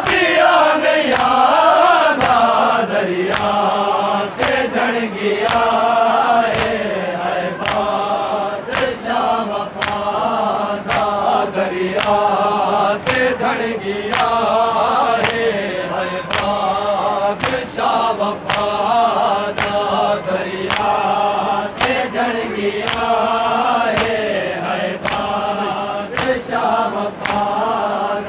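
A crowd of men chanting a Shia mourning lament (noha) in unison behind a lead voice, over a steady beat of hand strikes, about three every two seconds, as in chest-beating matam.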